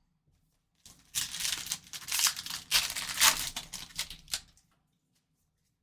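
Foil trading-card pack wrapper crinkling and tearing, with quick clicks of cards being handled. It starts about a second in and lasts about four seconds.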